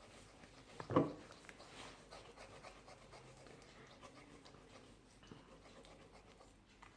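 Slime mixture being stirred and squished by hand, with faint sticky crackles and a single louder squelch about a second in.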